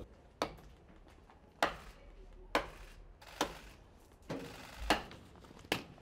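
An axe chopping wood: seven sharp blows, about one a second, each with a short ring.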